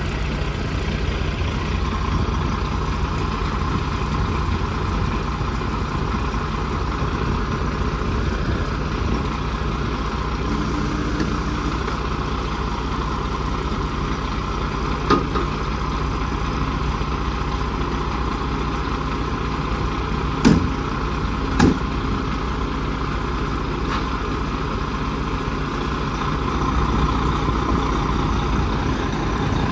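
Heavy dump truck's diesel engine idling steadily. Three short sharp knocks break through: one about halfway, then two about a second apart a few seconds later.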